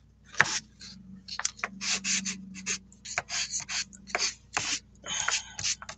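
Pastel stick scratching across toothy drawing paper in short, irregular strokes, roughly two to three a second.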